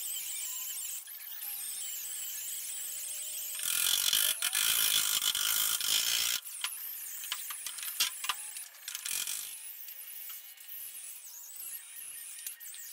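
Hand work on a welded patch in a car's sheet-steel body panel. A few seconds of loud hissing are followed by a run of sharp metallic taps as a body hammer works the fresh weld.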